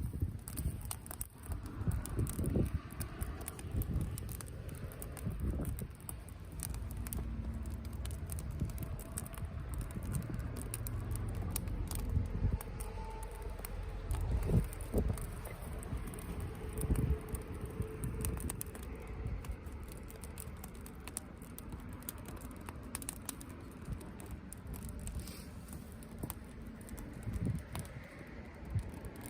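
Wood campfire crackling, with irregular small pops and snaps over a low rumble.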